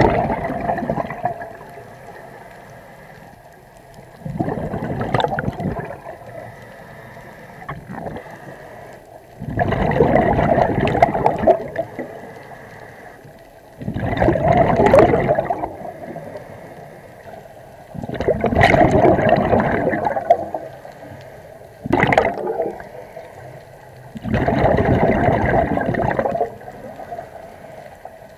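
Scuba diver breathing through a regulator underwater: a burst of exhaled bubbles about every four seconds, each lasting around two seconds, with quieter breathing between.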